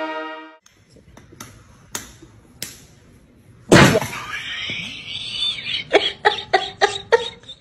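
Plastic ketchup squeeze bottle squirting with a loud, sudden wet sputter about four seconds in, trailing off as a hiss. A brass chord cuts off just before it starts, a few faint knocks come before the squirt, and a quick run of short pitched bursts, about five a second, follows near the end.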